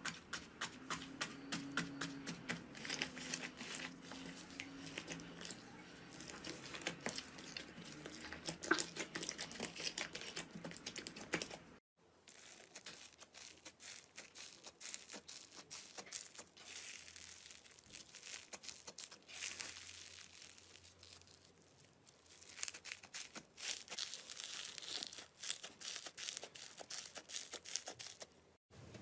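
Slime being squeezed, stretched and poked by hand, giving a dense run of small crackling clicks and pops. The sound breaks off about twelve seconds in and resumes with a similar but sparser crackle.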